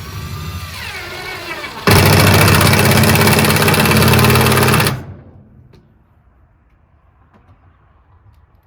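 A power driver motor runs with its pitch sliding up and down. About two seconds in it bursts into a loud, rapid hammering whir for about three seconds while driving a fastener, then stops abruptly.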